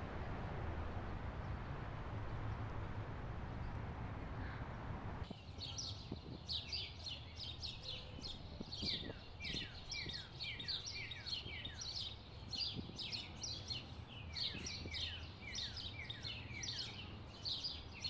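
Steady background noise for about five seconds, then an abrupt cut to many birds chirping, a dense run of quick falling chirps laid in as an ambient sound effect.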